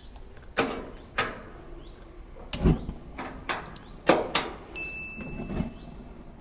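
Plancha grill being handled as it is switched on to preheat: a string of about seven sharp clicks and knocks spaced irregularly, the heaviest a dull knock about two and a half seconds in.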